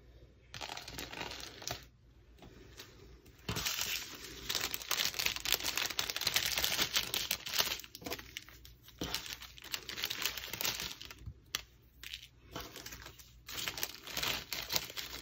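A small plastic zip bag crinkling, with loose resin diamond-painting drills clicking and skittering as they are swept up off the table and put back into the bag. The rustling comes in stretches, with short pauses.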